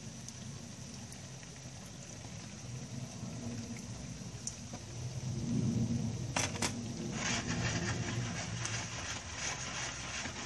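Dough rolls frying in a pan of hot oil: a low steady rumble, then two sharp taps of a utensil against the pan about six seconds in, after which the oil sizzles and crackles busily.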